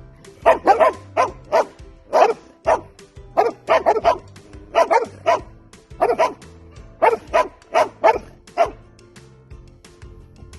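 A dog barking loudly, about twenty sharp barks in quick runs of two to four, stopping a little before the end, over background music with a low held bass line.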